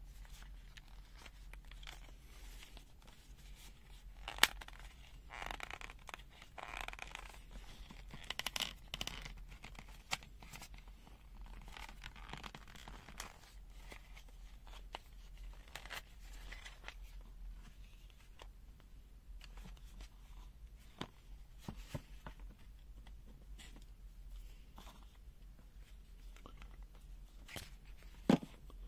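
A handheld digital multimeter being taken apart by hand. Scattered clicks and scrapes of its plastic case and parts, a rasping stretch about five seconds in, and a sharper click about four seconds in and another near the end.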